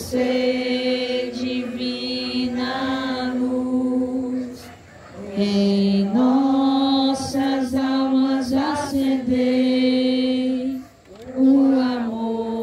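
Women's voices singing a slow Catholic devotional chant through a microphone and loudspeaker, in long held notes, with short breaks between phrases about five and eleven seconds in.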